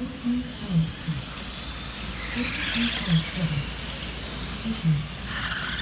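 Electric RC touring cars lapping a track, their motors and gears whining and sweeping up and down in pitch as they speed up and slow for corners. A lap-timing system's voice reads out lap times in short bursts, three times.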